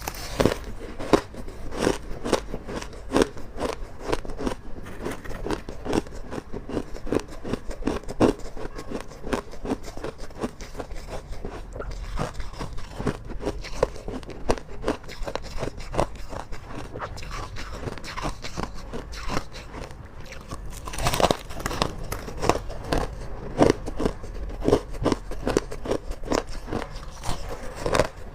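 Close-up crunching and chewing of hard ice: a dense run of sharp crunches, louder and busier near the start and again in the last third.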